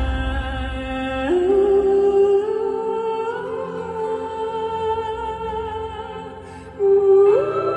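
Live pop song: a singer holds long, drawn-out notes over soft backing music, the melody stepping up in pitch. The music dips briefly near the end, then comes back louder on a higher note.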